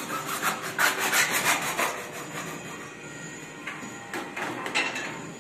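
Hacksaw cutting through a grey PVC pipe with quick back-and-forth strokes for about two seconds, then a few scattered scraping strokes near the end.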